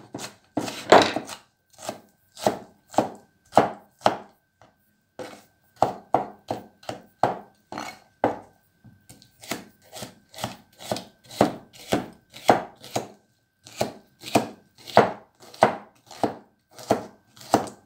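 Kitchen knife chopping capsicum into small thin pieces on a chopping board: even strokes about two a second, broken by a couple of short pauses.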